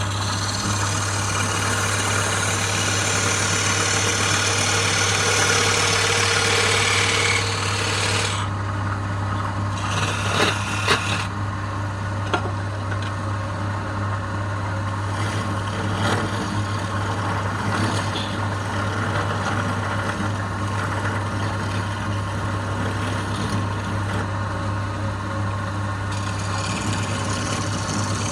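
Wood lathe running with a steady motor hum while a tool works the spinning wood, giving a loud scraping hiss for about the first eight seconds. After that the scraping eases off, with a few sharp knocks a couple of seconds later, and the lathe keeps running with lighter contact.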